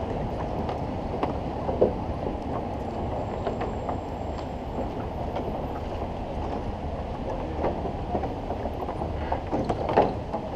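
Steady low outdoor rumble with scattered knocks of footsteps on the wooden planks of a footbridge deck, one sharper knock about two seconds in and another near the end.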